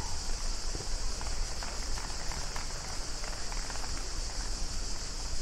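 Steady open-air ambience of a tennis court broadcast, a constant hiss with low rumble, with faint scattered short taps.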